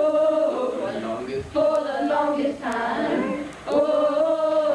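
A class of children singing together a cappella, with long held notes in three phrases broken by short pauses for breath.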